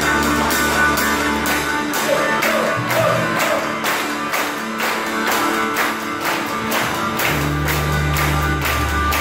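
Live band music led by a drum kit played with sticks, keeping a steady beat over sustained keyboard chords. The deep bass drops out about two seconds in and comes back near the end.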